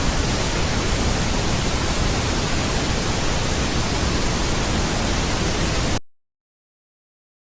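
Loud, steady static hiss, like a television with no signal, that cuts off suddenly about six seconds in.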